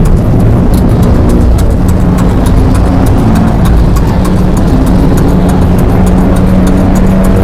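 Loud, dense low rumbling drone with a few held tones that step up and down in pitch, and a fine crackle of clicks over it.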